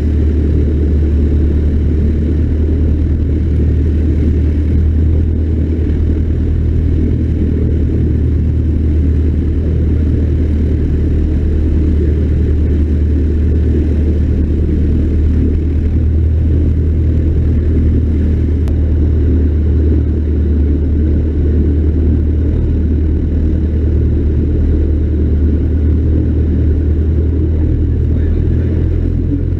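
Cessna 152's four-cylinder piston engine and propeller running at a steady power setting, a loud unbroken drone.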